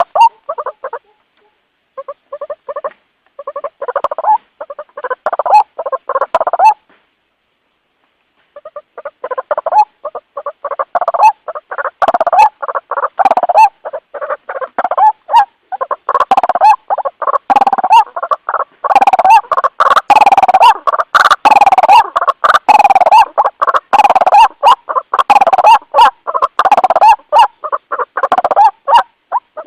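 White-breasted waterhen calling: fast, repeated croaking notes. The calling breaks off briefly twice in the first third, then runs on without a break.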